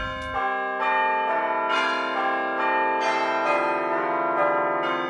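Bells chiming in a steady run of struck notes, about two a second, each one ringing on and overlapping the next.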